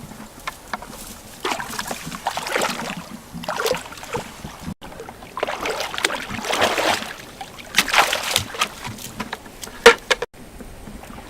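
Water sloshing and splashing in irregular surges, with a few sharp knocks near the end.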